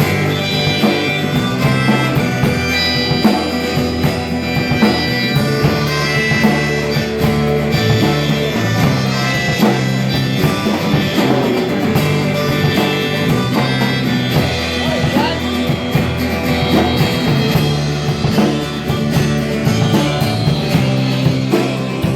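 Instrumental break in a blues-rock song: the band plays on without vocals, with a sustained lead line over guitar, bass and drums.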